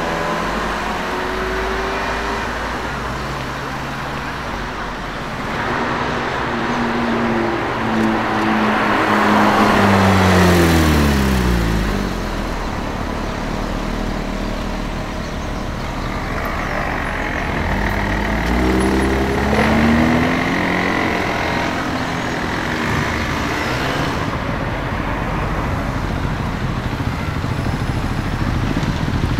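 Street traffic with cars driving past. One car's engine note falls steadily in pitch as it goes by, about a third of the way in, and another car's engine note rises a few seconds later.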